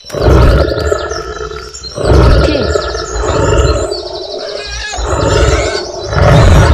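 Lion roar sound effects: about five long, loud roars, one after another.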